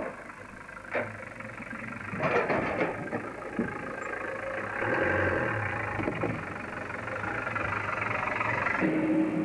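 A support van's engine running as it crawls over a broken, plank-patched bridge on a rough dirt track. Knocks and clatter come from the wheels and body over the boards around two to three seconds in, and the engine grows louder about five seconds in.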